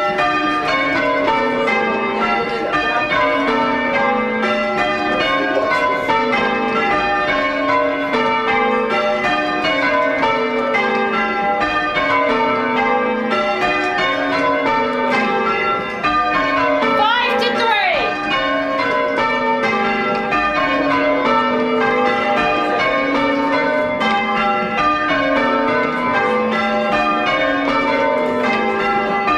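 Full-circle church bells rung in changes, a steady, evenly paced run of bell strokes heard from inside the ringing chamber, with the ringers pulling the bell ropes.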